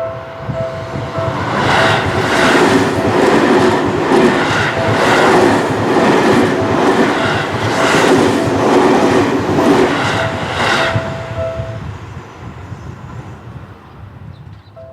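Train passing over a level crossing about 15 m away: a loud rush of wheels with a run of clacks as the wheels cross the rail joints, building about two seconds in and fading after about eleven seconds. The crossing's warning bell rings steadily at the start and briefly again as the train dies away.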